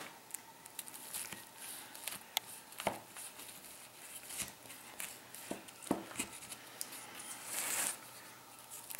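Large kitchen knife cutting through a flaky baked pie crust: scattered crisp crackles of the pastry breaking, with small sharp knocks as the blade meets the pie tin and board.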